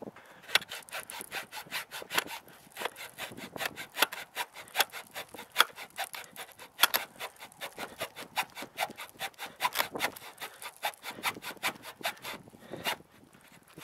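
Hand hacksaw cutting through wood in steady back-and-forth strokes, about two to three a second, which die away shortly before the end.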